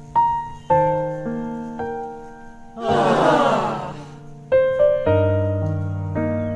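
Background piano music, notes and chords struck and left to die away, with a short rushing noise about three seconds in.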